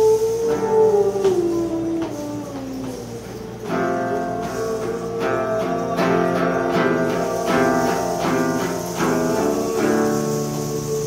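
Live acoustic guitar music: a long held melody note bends up and back down over the first three seconds, then plucked guitar chords take over.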